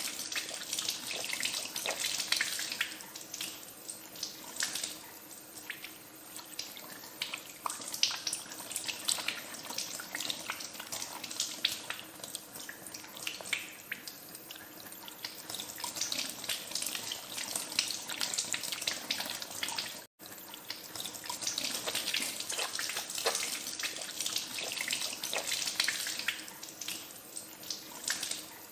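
Water running from a tap into a sink while hands are washed under it, with irregular small splashes and drips. The sound cuts out for an instant about twenty seconds in.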